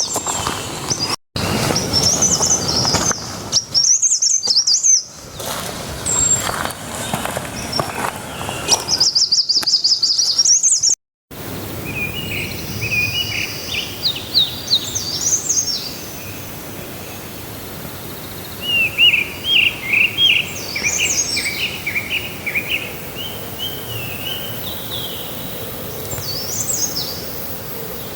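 Several songbirds chirping and singing in forest, over a steady background noise. There is a fast, high trill about ten seconds in and a run of lower repeated notes around twenty seconds in. The sound changes abruptly twice early on, where the footage is cut.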